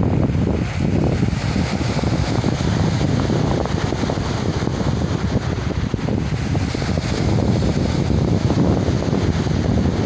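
Surf washing up over a pebble beach, with wind rumbling on the microphone.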